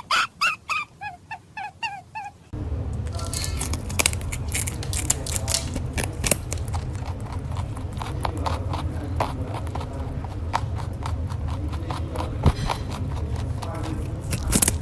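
A short run of repeated pitched notes stops abruptly about two and a half seconds in. It gives way to a domestic rabbit's irregular small clicks, taps and scrapes over a steady low hum.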